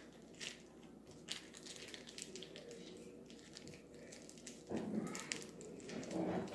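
Hands working a soft, sticky material, making quick sticky clicks and small squelches, with louder, fuller handling noise about five seconds in and again near the end.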